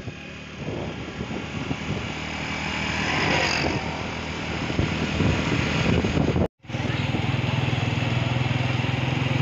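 Vehicle engine running and wind and road noise while driving, growing louder over the first few seconds. The sound cuts out briefly a little past six seconds, then comes back as a steadier low engine hum.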